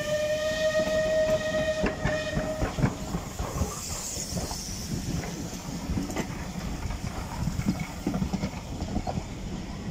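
Steam-hauled passenger coaches passing close by, their wheels rumbling and clattering over the rail joints. For about the first three seconds the steam whistle of locomotive 34081, a Bulleid Battle of Britain class Pacific, sounds one steady note.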